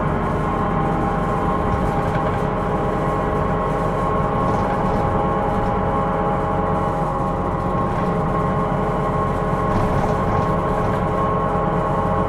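Inside a Hino Rainbow II medium non-step bus, with a steady diesel rumble under a constant multi-tone whine. The whine is the abnormal noise (異音) this bus is recorded for.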